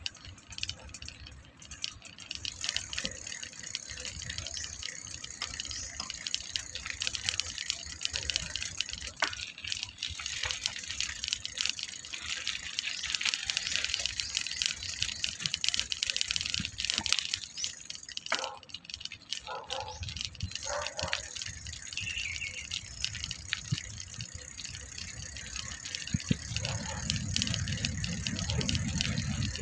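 Continuous rattling and road noise from riding along a rough concrete road, with many small clicks and knocks. A low rumble rises about three-quarters of the way in and keeps building to the end.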